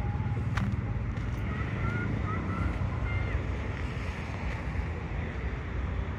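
Steady low rumble of wind on the microphone mixed with distant city traffic, with a few faint short high chirps in the middle and a single click about half a second in.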